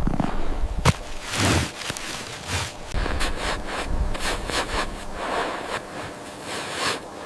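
Repeated rubbing and scraping strokes with a sharp knock just before one second in.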